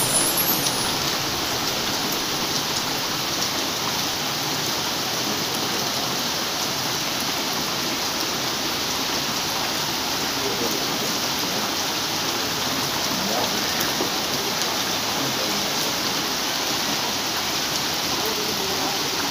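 Heavy rain falling steadily onto a flooded street, an unbroken hiss of downpour.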